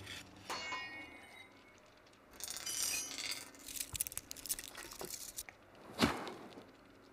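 Faint metallic clinks and ringing, scattered and uneven, with a sharper knock about six seconds in.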